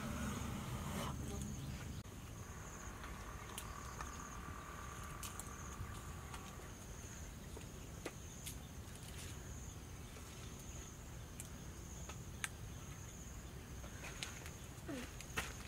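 Insects chirring in a steady high-pitched drone, with scattered short clicks and snaps over a low background rumble.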